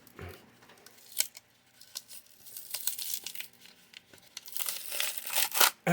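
Crinkling, tearing and scattered clicks of a coin package being worked open by hand, with a hard-to-open holder or wrapping that grows busier near the end.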